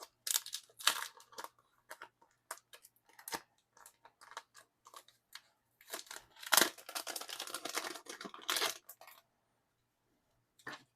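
Packaging being handled and opened by hand: short crinkles and rustles, then a longer run of crinkling and tearing in the middle that stops a couple of seconds before the end.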